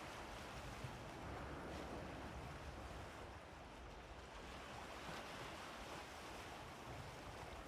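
Gentle sea waves washing against the shore in a steady, soft wash of surf.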